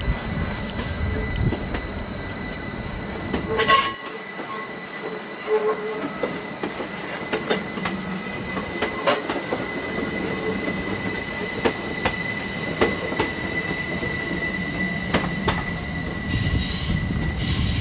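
Train at a station with a steady high-pitched squeal, scattered clicks and knocks, and a louder clank about four seconds in.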